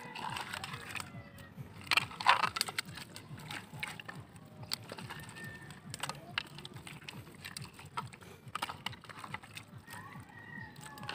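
Hands squeezing and mixing raw pork chops in a wet soy-sauce marinade on a plate: irregular soft squelches and slaps, with a louder stretch about two seconds in.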